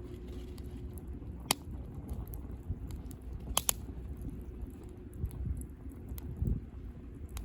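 Wood campfire crackling, with a sharp pop about one and a half seconds in and a quick double pop near the middle, over a low steady rumble of the burning fire.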